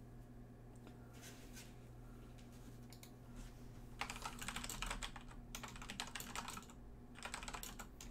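Typing on a computer keyboard: a few scattered key clicks, then two fast runs of clicks from about four seconds in, over a faint steady hum.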